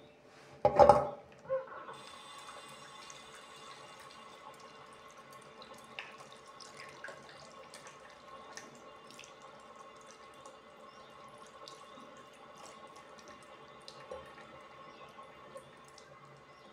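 Water running from a tap into a bathroom sink while hands are washed, with small splashes and drips throughout. A brief loud burst comes about a second in, before the steady flow settles.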